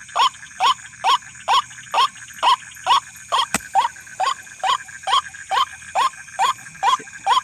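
White-breasted waterhen (ruak-ruak) call: a harsh 'kruak' note repeated rhythmically, about two a second, over a steady high-pitched insect drone. A single sharp click comes about halfway through.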